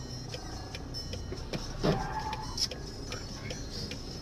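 Steady low hum from inside a car's cabin, with a regular ticking a little over two ticks a second. A single sharp thump about two seconds in, followed by a brief ringing tone.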